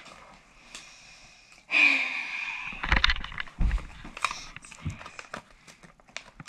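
Paper crinkling and rustling as a folded sticky note is taken from a plastic hat and unfolded by hand: irregular small crackles with a couple of low handling bumps. A short rush of noise comes about two seconds in.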